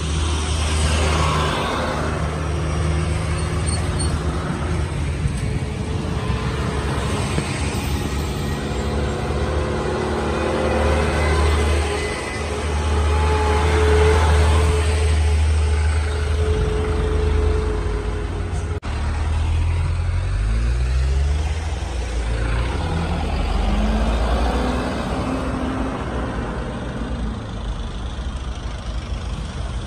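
Heavy diesel trucks loaded with sugarcane, their engines running with a steady low hum. About twenty seconds in, an engine speeds up, its pitch climbing again and again as it works up through the gears.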